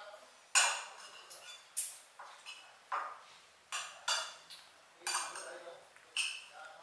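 Young kittens mewing in short, high cries, about one or two a second, each cry fading quickly.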